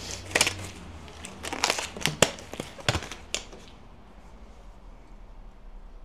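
Disposable examination gloves being peeled off the hands: a quick run of sharp snaps and crinkling that stops a little over three seconds in.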